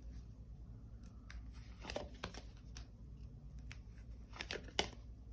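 Faint, scattered clicks and short rustles of tarot cards being handled and laid on a table, a handful over a few seconds, over a low steady hum.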